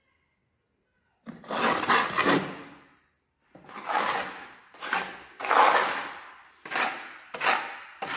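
Steel plastering trowel spreading latex-modified cement mortar onto a wall in about six rough scraping strokes, starting a little over a second in.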